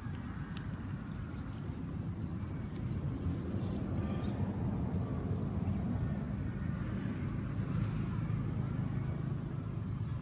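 Outdoor background: a steady low rumble that swells through the middle, with a few faint high chirps.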